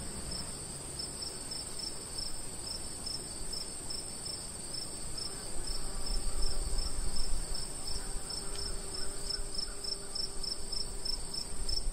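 Night insect chorus: crickets keep up a steady high-pitched trill, and a second insect chirps in an even pulse of about two to three chirps a second.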